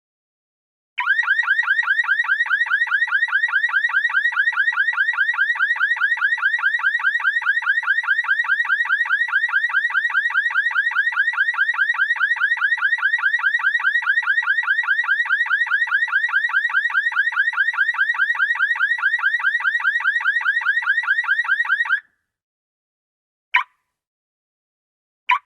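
Car alarm going off: a rapid warbling tone repeating many times a second, starting about a second in and cutting off suddenly after about twenty seconds. Two short single chirps follow near the end.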